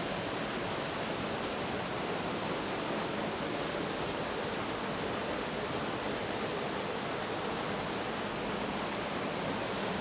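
Steady rush of a creek running and falling over rock, an even hiss with no breaks.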